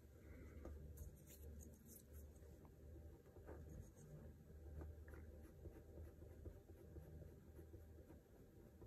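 Faint scratching of a pencil point working small strokes on the painted board, over a low steady hum.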